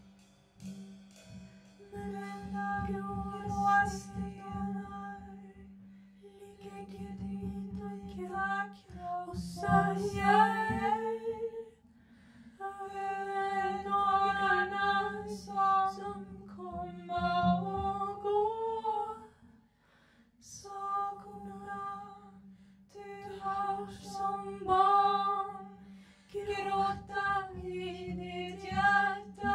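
Live free-jazz performance: female voices singing slow, held phrases with short pauses between them, over a low sustained note and soft low pulses from the band.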